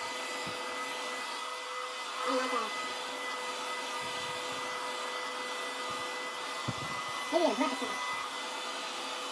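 Handheld hair dryer running steadily: an even rush of air with a constant whine.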